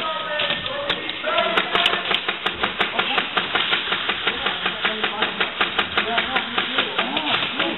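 Rapid airsoft gunfire: a fast, even string of sharp pops that starts about a second and a half in and keeps going without a break. Indistinct voices are heard just before it starts.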